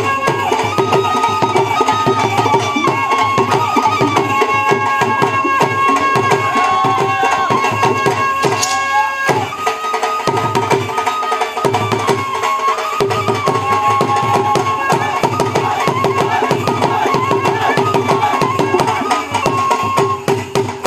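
Instrumental passage of a Punjabi bhangra song: a fast, even drum beat under a held melody line. The low drums drop out briefly a few times about ten seconds in.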